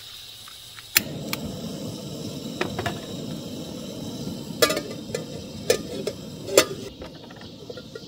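Peak 1 gas canister stove lit with a click about a second in, then the burner running with a steady hiss. A metal cooking pot is set on the stove's pot supports, clanking and ringing three times toward the end.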